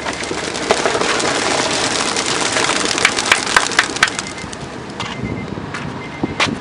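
A flock of young racing pigeons taking off together on release, a loud rush of flapping wings with many rapid wing claps that eases off after about five seconds as the birds fly away.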